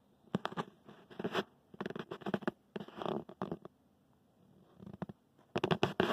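Close rustling and clicking in irregular bursts, like handling noise from the recording phone as it is moved, with a pause of about a second before a last flurry near the end.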